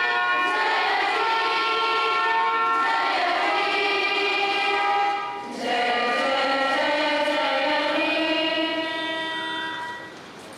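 Background music of sustained, held chords, with a brief break about halfway through, fading out near the end.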